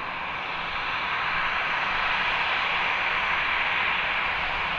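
Jet airliner taxiing, its engines at low taxi power: a steady rushing noise that swells slightly in the middle.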